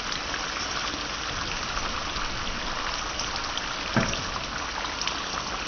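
Okra sizzling and crackling as it fries in oil in a pan, with a single knock about four seconds in.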